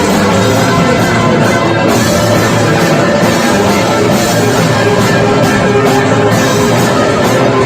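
Band rehearsing a loud, dense noise-rock jam: a continuous wall of sound with no pauses or clear breaks.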